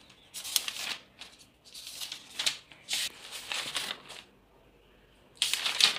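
Paper pages of a thick book being turned and handled, rustling in four bursts, the loudest near the end.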